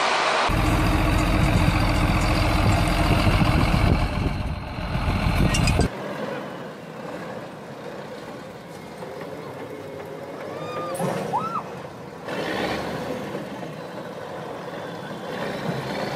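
Heavy diesel engine running loudly for about the first six seconds, then cut off abruptly. After that a Kirovets articulated tractor's diesel engine works more quietly and farther off as the tractor climbs a sandy slope.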